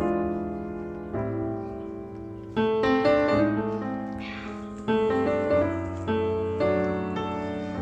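Background piano music: gentle chords struck every second or two, each left to fade.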